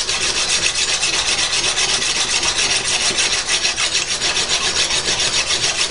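Handheld whetstone stroked quickly back and forth along the edge of a steel kitchen knife: stone scraping on steel, several even strokes a second, sharpening the blade.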